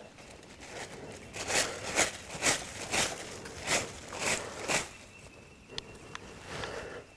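Footsteps crunching through dry leaf litter on the forest floor, about two steps a second for a few seconds, then stopping.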